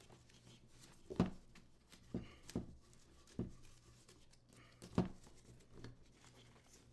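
Faint handling noise of a rifle sling's strap being threaded through its mounting points on an AR-15, with a few light knocks and clicks from the strap hardware against the rifle.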